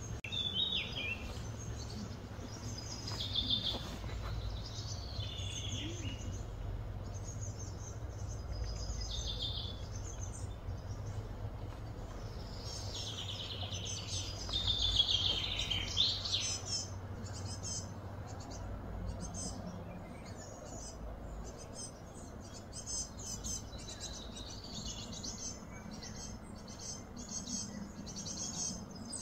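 Wild birds chirping and trilling in repeated short phrases, busiest about halfway through, over a low steady hum.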